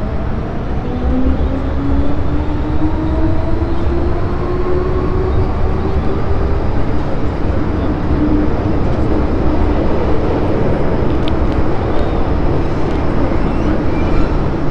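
MTR M-train (Metro-Cammell electric multiple unit) accelerating away from a station. The traction motor whine rises steadily in pitch over the first several seconds, then levels off, over a continuous rumble of wheels on track, heard from inside the car.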